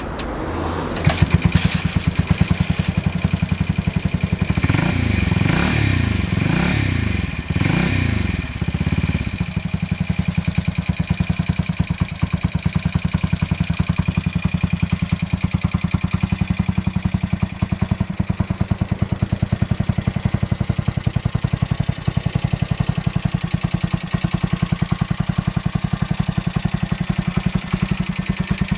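Aermacchi Sprint's horizontal single-cylinder four-stroke engine catches on the kick starter about a second in. It is blipped on the throttle several times, its pitch rising and falling, then settles into a steady, evenly pulsing idle.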